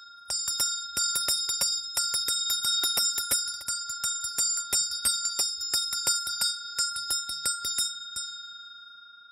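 Shaman's metal handbell shaken fast and steadily, several strikes a second over a continuous ringing, rung to call down a spirit's message (gongsu). The shaking stops about eight seconds in and the bell rings out.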